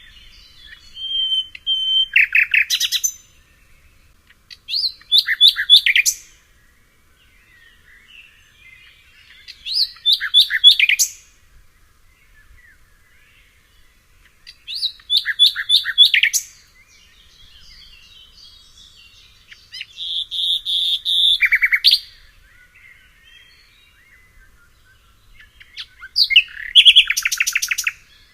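A songbird singing the same short phrase over and over, about every five seconds: each phrase is a quick run of rapidly repeated high notes, six phrases in all. Faint chirps of other birds can be heard between the phrases.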